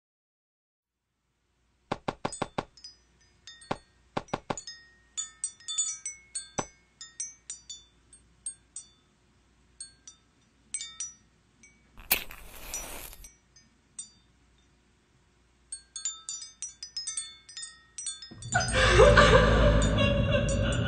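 Sparse, high-pitched wind-chime tinkling in irregular clusters, with a short hiss about twelve seconds in. Loud music comes in near the end.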